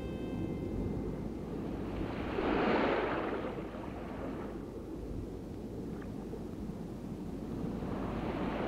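Sea surf breaking on a sandy beach: a steady low rush of water with two waves swelling up and crashing, one about two and a half seconds in and another near the end.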